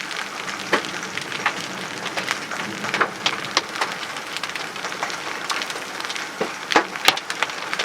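Large hailstones striking the car at irregular intervals, sharp knocks over a steady hiss of heavy rain, with the two loudest hits near the end.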